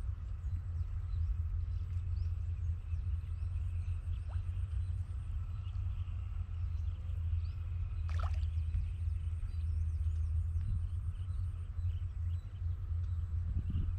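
Outdoor ambience dominated by a wavering low rumble of wind on the microphone, with faint bird chirps and a thin steady insect buzz. One brief, sharper sound stands out about eight seconds in.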